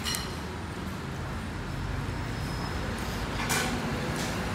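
Steady low rumble of street traffic, with brief sounds of a spoon and chopsticks working in a soup bowl, once at the start and again, louder, about three and a half seconds in.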